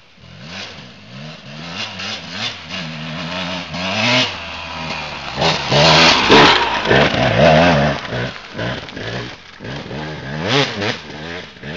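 250 cc two-stroke enduro motorcycle revving hard on a rocky uphill climb, the engine pitch rising and falling over and over as the throttle is worked. It grows louder to a peak as it passes close by about six seconds in, then fades as it heads up the trail.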